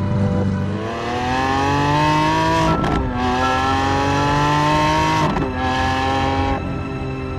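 Lamborghini Countach V12 accelerating hard, its pitch climbing and dropping sharply at two upshifts, about three and five seconds in. The engine sound falls away near the end.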